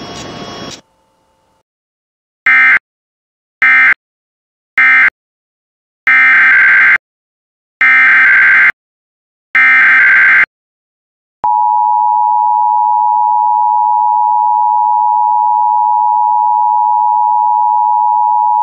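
Emergency Alert System tones: three short SAME data bursts ending the previous alert, then three longer SAME header bursts, each a harsh warbling screech, then about halfway in the steady two-tone EAS attention signal (853 and 960 Hz) starts and holds.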